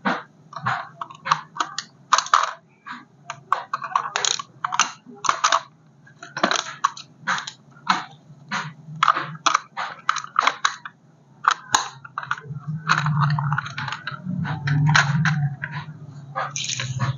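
Hands handling a toy RC car and its plastic and cardboard packaging: irregular quick clicks, taps and crinkles, over a steady low hum that swells for a few seconds near the end.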